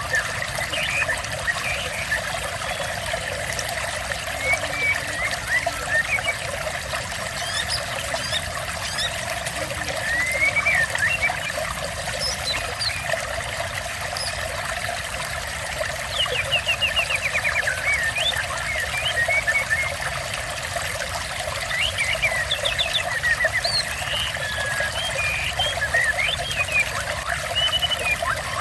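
Steady trickling water with small birds chirping over it in short rising and falling calls, as in a water-and-birdsong therapy track for murai birds.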